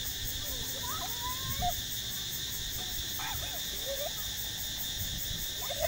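Steady high-pitched chirring of insects, with a few short high-pitched calls that slide up or down and some soft low thumps.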